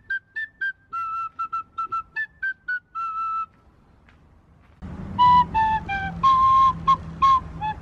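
A small end-blown flute played as a simple melody of short, clear high notes. It breaks off about three and a half seconds in, then comes back louder and lower-pitched, with more breath noise and a low hum behind it.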